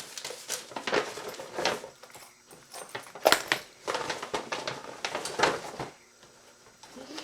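Handling items taken from a handbag: a string of light knocks, clicks and rustles as things are picked up and set down, with the sharpest knock about three seconds in.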